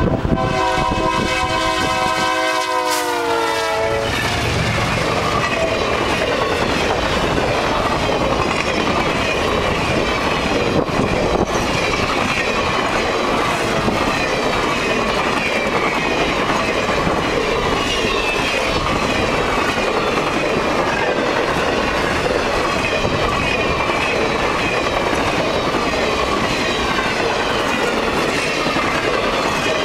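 Freight train led by a GE C44-9W diesel locomotive: its multi-tone horn chord sounds for the first few seconds and drops in pitch as the locomotive passes. Then the freight cars roll by with a steady rumble and clatter of wheels on the rails.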